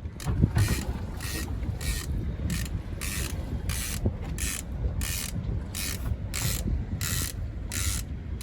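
Fishing reel being cranked, its gears giving a regular whirring click about twice a second, over a low rumble of wind on the microphone.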